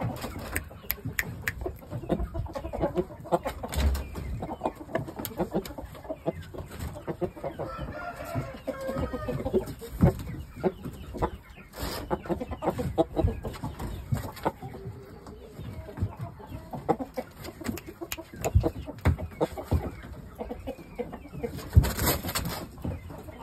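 Chickens clucking, with a rooster crowing about eight seconds in and scattered short knocks throughout.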